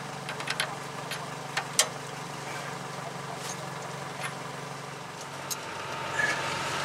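Sharp metallic clicks and taps of a socket being worked on a lower ball joint's castle nut, several in the first two seconds and a few sparser ones later, over a steady low machine hum.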